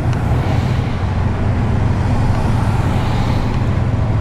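Car driving at a steady speed: a constant low engine and road rumble with tyre noise above it.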